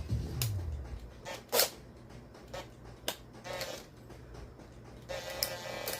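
Sharp clicks and small taps of a drilled-out diecast toy van being handled and its base worked loose, the loudest about a second and a half in. Near the end a steady buzzing tone comes in.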